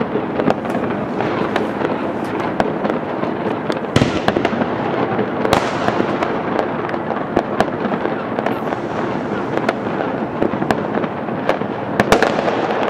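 Many fireworks and firecrackers going off at once: a dense, continuous crackle of pops and bangs, with louder bangs about four seconds in, about five and a half seconds in, and near the end.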